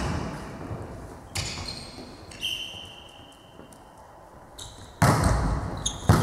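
Volleyball being played in a large sports hall: a sharp hit on the ball about a second in, a quiet lull with a thin steady tone, then a loud hit near the end and a second sharp strike just after, each echoing in the hall.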